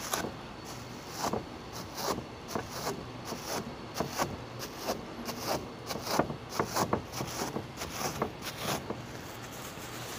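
A crumpled plastic bag crinkling as it is pressed onto and lifted off a painted canvas again and again, irregular crackles several a second that stop about nine seconds in.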